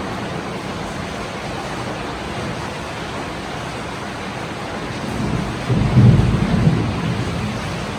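Rain falling steadily, with a low rumble that swells about five seconds in and fades over the next two seconds.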